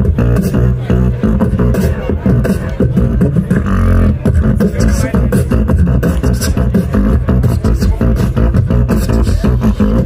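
Live beatboxing: a fast, dense rhythm of vocal drum sounds over heavy bass.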